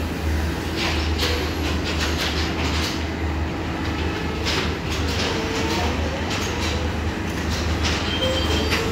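Passenger train coaches rolling slowly into a station platform: a steady low rumble with scattered wheel clacks over the rail joints, and a thin, high brake squeal near the end as the train slows.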